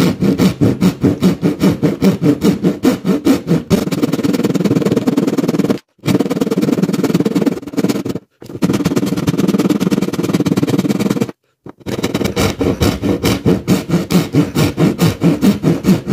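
Rapid rhythmic strokes of a heavy hand rasp filing the edge of a hole in a wooden baseboard, several strokes a second in sped-up playback, broken by three brief silences.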